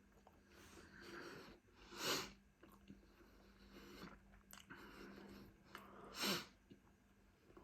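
Close-mic eating sounds: soft chewing of food, with two short, louder breathy rushes about four seconds apart.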